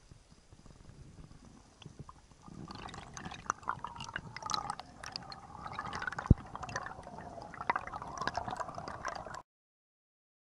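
Underwater ambience while spearfishing: faint crackling clicks, then from about two and a half seconds in, louder gurgling and sloshing water with knocks as the diver handles a speared octopus, and one sharp knock past the middle. It cuts off suddenly near the end.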